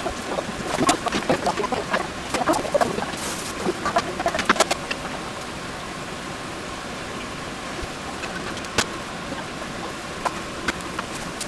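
Sliced onions sizzling in a frying pan while a wooden spatula stirs them, scraping and knocking against the pan for the first few seconds. After that, a steady sizzle with a few light clicks.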